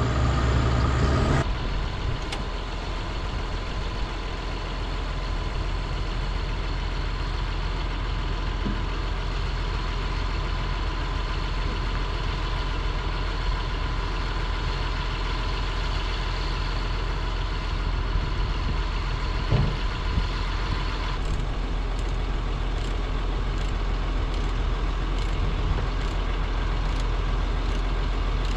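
Heavy truck's diesel engine idling steadily, with a faint constant whine over the low drone; the sound drops suddenly in level about a second and a half in.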